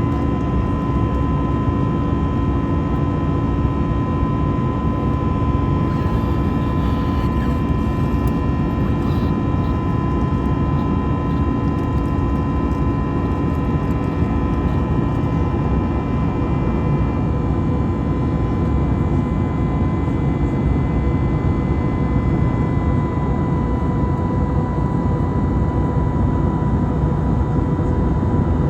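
Airbus A320neo jet engines and airflow heard inside the passenger cabin: a loud, steady rumble and hiss with several steady whining tones held throughout.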